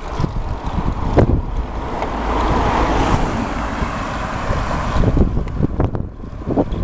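A Volkswagen van overtaking the bicycle, its road noise swelling to a peak midway and then fading as it pulls ahead. Wind on the microphone rumbles throughout.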